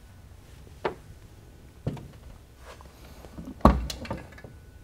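Hood latches being undone and the hood of a Shelby Cobra replica lifted open: about four short sharp clicks and knocks roughly a second apart, the loudest a little before the end.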